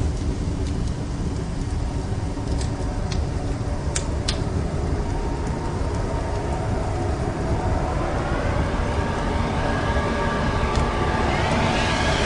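Heavy low rumble with a few sharp clicks about a third of the way in. From about two-thirds in, a cluster of tones rises slowly in pitch and grows louder over the rumble.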